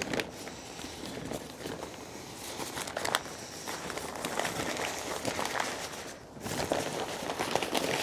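Grease-soaked pink butcher paper crinkling and rustling as it is peeled open from a smoked brisket, with a brief lull about six seconds in.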